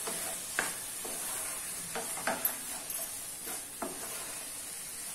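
A spatula stirring crumbled paneer into sizzling tomato-onion masala in a non-stick kadhai: a steady sizzle, with about five short strokes of the spatula against the pan.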